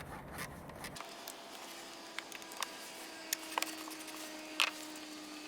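A few separate light metallic clicks and taps of a socket, extension and ratchet being worked on the battery clamp's 13 mm nut, over a faint steady hum.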